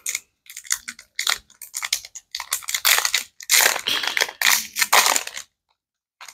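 Foil booster-pack wrapper crinkling and rustling in quick irregular bursts as it is handled and opened, stopping about five and a half seconds in.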